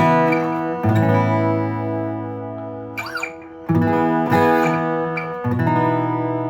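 Guitar in open E tuning playing a two-string intro riff, pairs of notes struck three times and left to ring and fade, with a brief string squeak of a fretting-hand slide between them.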